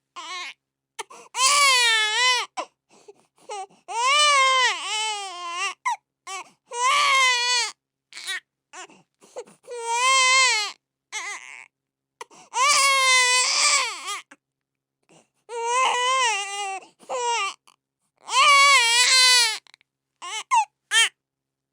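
Baby crying: a string of high wails, each about a second long, rising and falling in pitch, with short gasps for breath between them.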